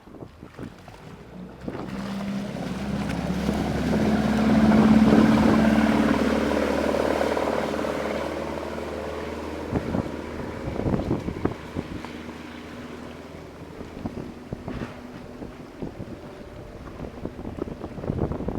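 Speedboat running on the water, powered by an inboard four-cylinder Chevrolet Opala engine driving a sterndrive. The steady engine note swells to its loudest about five seconds in, then fades. Gusts of wind on the microphone follow.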